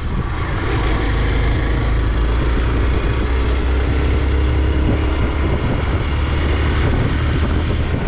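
Hero Xpulse 200's single-cylinder engine running steadily as the motorcycle is ridden along a road, with wind rushing over the microphone.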